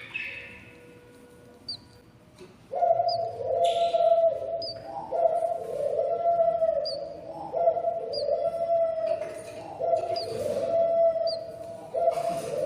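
Budgerigar chicks in the nest box giving hungry begging calls: faint short high chirps at first, then from about three seconds in a loud, continuous run of repeated calls, each rising and falling over about a second. A few brief rustles sound among them.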